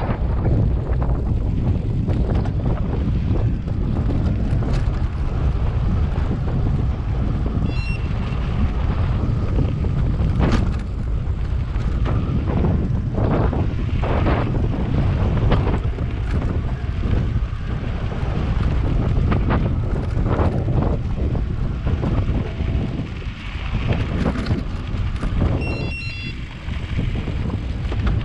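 Wind buffeting the microphone on a moving e-mountain bike, a heavy low rumble with scattered knocks and rattles from the ride. Two brief high-pitched chirps come through, one about a third of the way in and one near the end.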